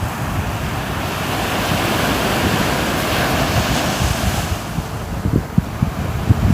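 Ocean waves on a shore: a wave's wash swells into a hiss about a second in and fades away near the middle. Low rumbling gusts of wind buffet the microphone toward the end.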